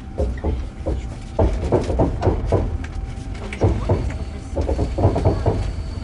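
Indistinct voices of people talking, in separate spells, over a steady low rumble of a train carriage.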